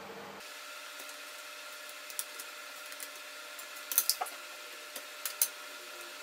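A few small sharp clicks and taps over a faint steady hiss, the loudest cluster about four seconds in and another pair near five and a half seconds: small parts and tools being handled inside an opened MacBook Pro.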